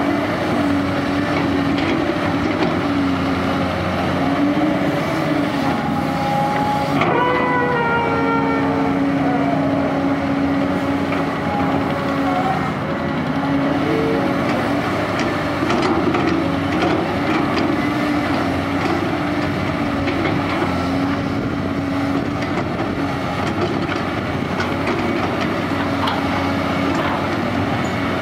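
CAT 320D tracked excavator's six-cylinder diesel running under working load, its note rising and falling as the hydraulics drive the boom and bucket through mud. About seven seconds in a brief, slightly falling whistling squeal rises above the engine.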